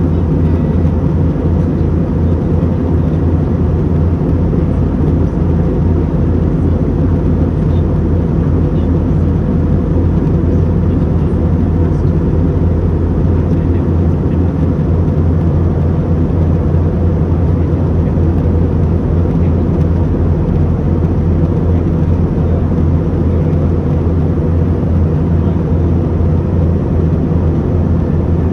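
Airliner cabin noise in flight: a steady low engine drone with an even rush of air over it, unchanging throughout.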